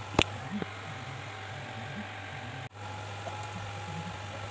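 Steady low electrical hum with hiss, with a sharp click just after the start and a smaller one half a second later; the sound drops out for an instant about two-thirds of the way through.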